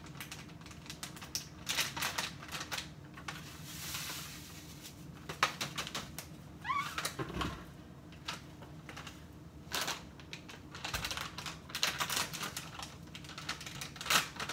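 Irregular clicks, taps and plastic rustling as a bag of breadcrumbs and containers are handled on a kitchen counter, with a short rising squeak about seven seconds in.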